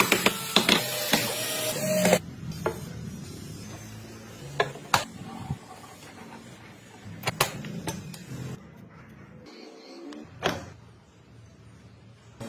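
Cordless drill driving a screw into wood for about two seconds, its motor running under load. Then scattered light clicks and knocks of wooden model parts being handled.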